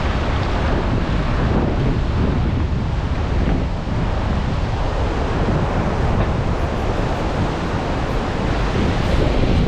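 Typhoon wind gusting across the microphone over heavy surf: a loud, steady rush of noise, heaviest in the low end.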